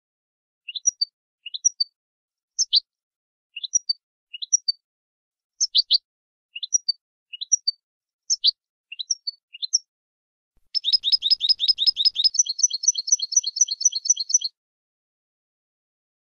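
European goldfinch giving its short repeated call notes, each a quick upward-sweeping chirp with a clipped second note, spaced out at about one a second. About two thirds of the way through it breaks into a fast rattling trill of rapid notes lasting about four seconds.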